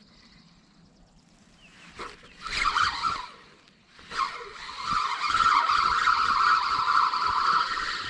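Spinning reel being cranked: a short whirring burst about two and a half seconds in, then a steady, continuous whir of the retrieve from about four seconds in.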